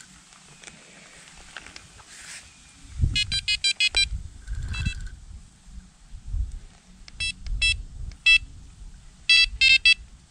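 Electronic carp-fishing bite alarm beeping in quick runs of short beeps, several clusters a second or two apart, over low knocks from rod handling. The beeps signal line moving over the alarm's sensor as the rod is set up.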